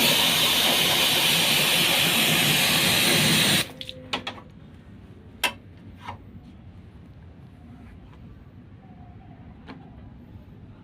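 Steady hiss of a water spray jet washing an air conditioner unit. It cuts off suddenly a few seconds in, followed by a few sharp clicks and knocks.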